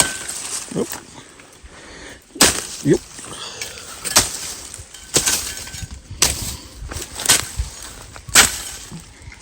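Dry corn ears being snapped off their stalks by hand: a sharp crack about once a second, six in all, from about two seconds in.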